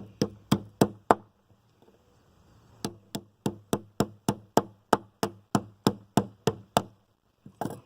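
Fast, even hatchet strikes on a plastic fidget spinner, about three blows a second: a short run of four, a pause of nearly two seconds, then a longer run of about fourteen, and one last blow near the end.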